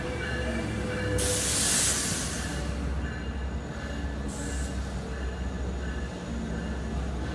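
Long Island Rail Road bilevel passenger train rolling past the platform with a steady low rumble. A loud hiss of air starts about a second in and lasts over a second, and a shorter hiss comes near the middle.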